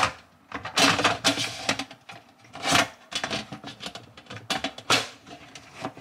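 Bosch dishwasher filter assembly being refitted into the sump: the metal fine-filter plate and cylindrical microfilter scrape, click and knock against the stainless tub in a series of short, sharp rattles.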